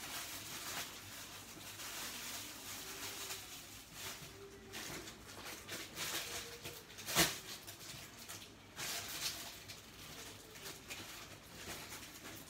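Soft rustling and scratching from handling small toys and packaging close to the microphone, with one sharp click about seven seconds in.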